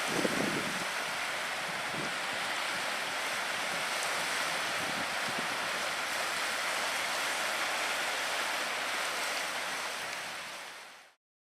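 Steady rushing harbourside ambience of wind and water, with a brief low thump just after the start; it fades out to silence shortly before the end.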